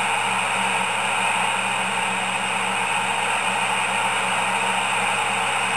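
Midland 77-285 CB radio's speaker putting out steady static hiss, with a low hum underneath, between transmissions on the channel.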